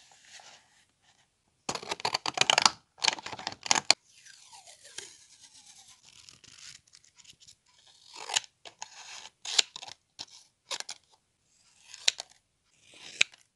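Paper handled close to the microphone: loud crinkling and rustling, then softer rustling as pages are leafed through. After that come about five crisp scissor snips through paper, a little over a second apart.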